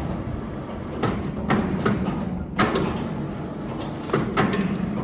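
An engine runs steadily under a series of sharp metallic knocks and clanks, about seven at irregular intervals, as heavy machinery is shifted during loading.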